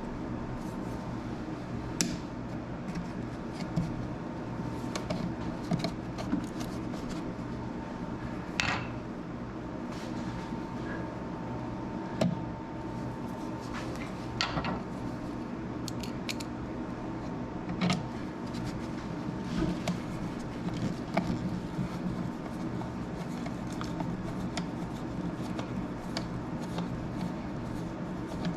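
Scattered clicks, taps and light knocks of a wall outlet and its hardware being handled and worked back into the electrical box, over a steady low hum. A thin steady whine in the background stops about halfway through.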